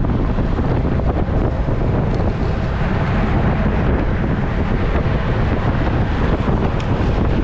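Wind buffeting the microphone of a camera on a road bike riding at speed, a steady rumbling rush.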